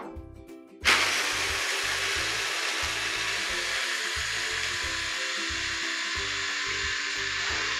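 Electric mini food chopper switched on about a second in and running steadily, its blades grinding digestive biscuits into fine crumbs.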